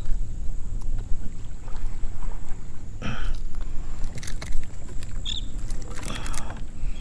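Steady low rumble of wind buffeting the microphone, with a few short clicks and splashes at about three, four and six seconds in.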